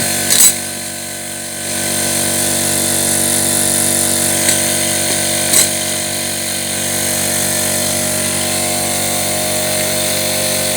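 A machine running steadily with an even drone, with a few sharp metal clinks, one near the start and two around the middle.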